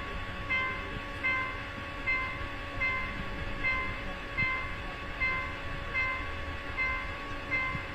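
Level crossing warning signal sounding a repeated electronic chime, about one every 0.8 seconds.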